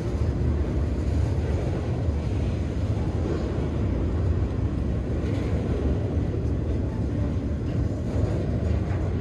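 Freight train rolling past: a steady low rumble with no horn or other sudden sounds.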